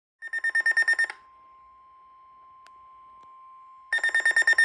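Emergency Alert System SAME header data bursts: harsh, rapidly pulsing digital warbles pitched high. One burst lasts about a second, then comes a gap holding only a faint steady tone, and a second burst starts near the end. The header is the coded start of a Severe Thunderstorm Warning alert.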